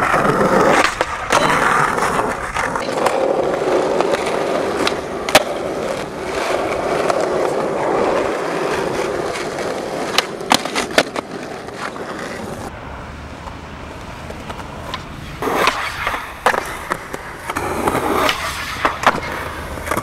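Skateboard wheels rolling over rough concrete, with several sharp cracks of the board striking the ground.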